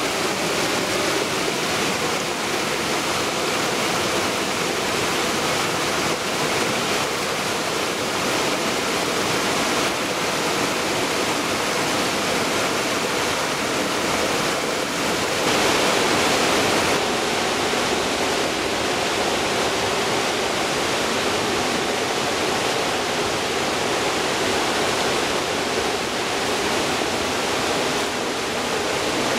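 Creek water cascading over rock ledges at small waterfalls: a steady rush of falling water, with a slight change in tone about two-thirds of the way through.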